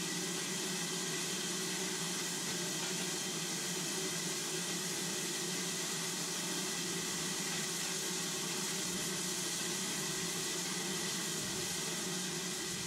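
Steady hiss of escaping steam from a 0-6-0 saddle tank steam locomotive.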